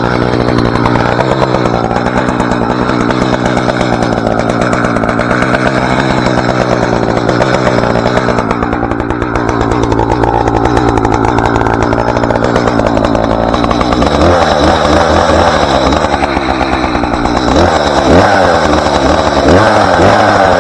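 Two-stroke chainsaw running at a steady speed, then from about two-thirds of the way through revved up and down again and again.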